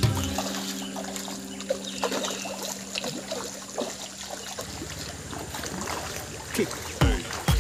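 Many fish splashing and smacking at the pond surface as they snap up scattered feed, a rapid irregular patter of small splashes. A steady low hum runs under it and stops about halfway through.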